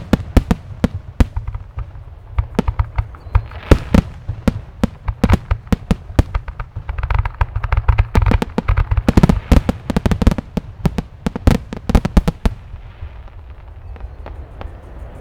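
Aerial fireworks display: a rapid series of sharp bangs and crackles from shells launching and bursting, densest in the middle and thinning out over the last few seconds, over a steady low rumble.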